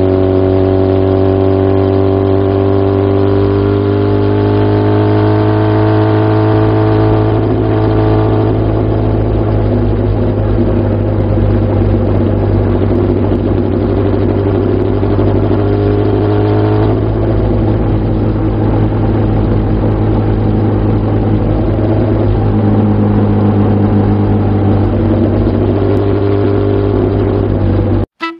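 Kawasaki Z750FX-1's air-cooled inline-four through a Moriwaki racing exhaust, heard from the saddle on the move. The revs climb steadily under throttle for about the first eight seconds, then ease off and run on at lower, shifting revs.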